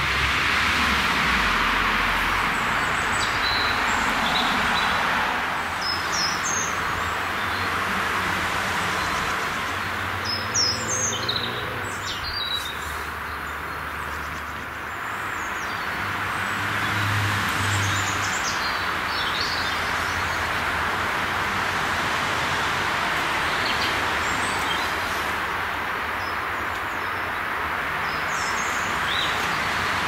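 Small birds chirping in short scattered phrases over a steady rushing background noise that swells and eases.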